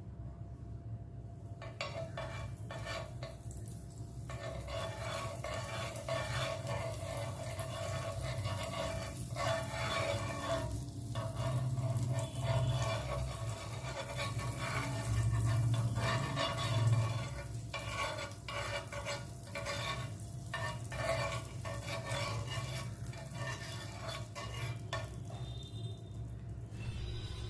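Kitchen utensil stirring and scraping against a dish, with irregular clicks and a steady low hum underneath.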